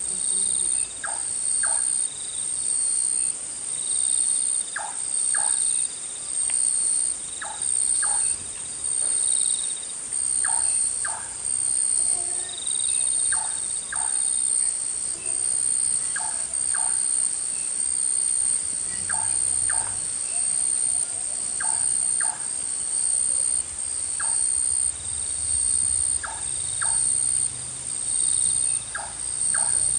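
Night insects in tropical forest, crickets or cicadas, making a loud, high trill that swells and fades a bit less than once a second. A short two-note animal call repeats through it every two to three seconds.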